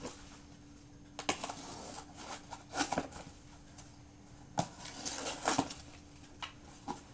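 Folding knife with an S30V steel blade slicing through cardboard: a series of short scraping cutting strokes, several seconds apart. A faint steady hum runs underneath.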